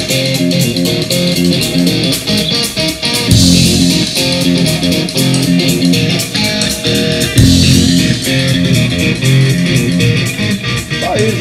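Guitar music with electric guitar and bass, played loud through loudspeakers driven by a Unic PA-1400 DX power amplifier during a listening demonstration.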